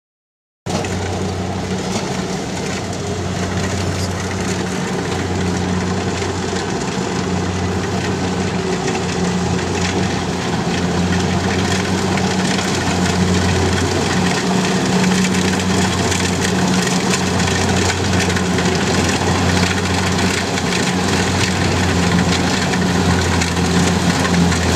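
Large machine engine running steadily: a constant low hum with a dense mechanical rattle over it. It cuts in abruptly just under a second in.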